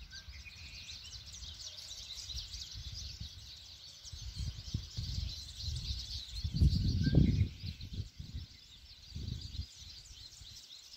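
Many birds chirping together in a dense, high-pitched chorus, with a few clearer whistled notes now and then. Low rumbles come and go underneath, loudest about halfway through.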